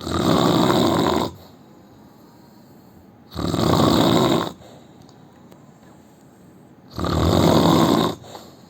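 A sleeping man snoring loudly: three long snores on the in-breath, each about a second long and about three and a half seconds apart, with quiet breathing between.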